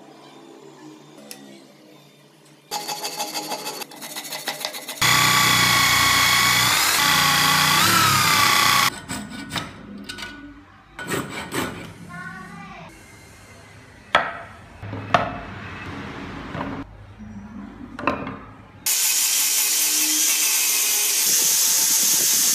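Woodworking tools cutting and shaping a wooden part. First a power tool runs with a whine that sags in pitch under load, then a hand saw cuts in uneven strokes with a few knocks. About three seconds before the end, an angle grinder with a sanding drum starts and runs steadily.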